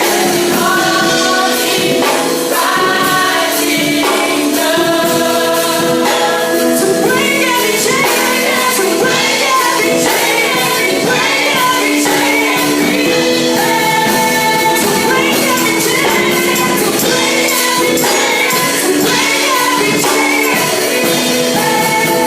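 Live gospel worship band playing with a group of singers, percussion keeping a steady beat under the sustained vocal lines.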